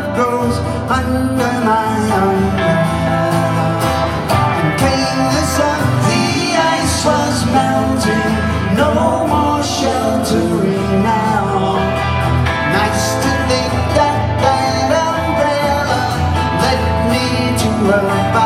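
Live pop song played on acoustic guitars, with a male voice singing.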